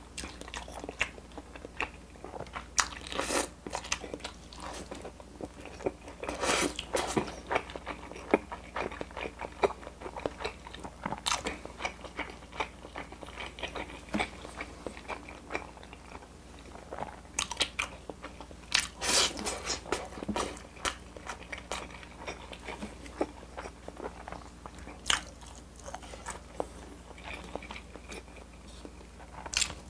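Close-miked eating: a person chewing hamburger steak and kimchi, with wet mouth clicks and smacks scattered irregularly and louder bites every few seconds.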